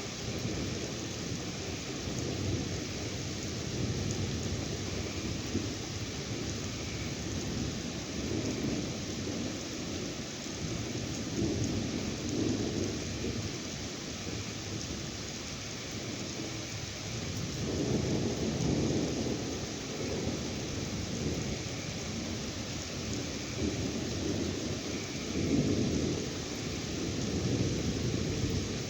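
Steady rain falling through a thunderstorm, with low rolls of thunder rumbling several times, the strongest about two-thirds of the way through and again near the end.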